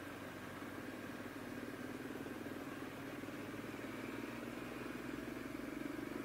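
Motorcycle engine running steadily at road speed, heard from the bike itself, getting a little louder over the last couple of seconds.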